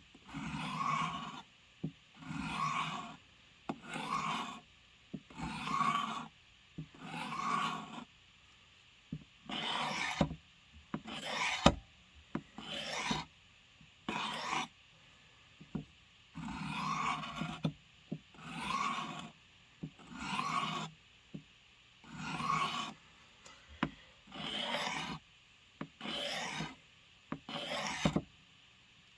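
Blade edge drawn stroke after stroke across the abrasive of a Work Sharp field sharpener, a rasping scrape about once every second and a half, with two short pauses. The sharpener is working the edge evenly, with one extra stroke on one side to bring an out-of-balance bevel even.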